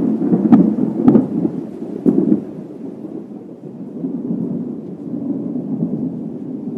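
Thunderstorm sound: a low, steady rumble of thunder with rain, with a few sharp cracks in the first couple of seconds before it settles into a softer rolling rumble.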